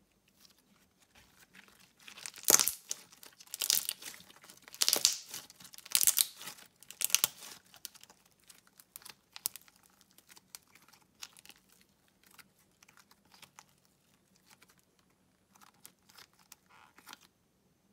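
Hands squeezing and stretching glossy slime, making crackling, popping sounds. The crackling is densest and loudest from about two to eight seconds in, then thins out to softer scattered pops.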